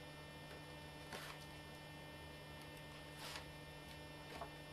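Steady electrical mains hum, with two faint, brief paper rustles from a photo being handled, about a second in and just past three seconds.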